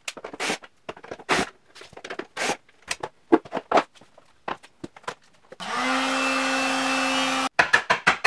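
Cordless drill-driver backing screws out of a plastic radiator fan shroud: irregular knocks and clatter of plastic parts, then about five and a half seconds in the drill runs steadily with a fixed whine for about two seconds and stops sharply, followed by a quick run of clicks.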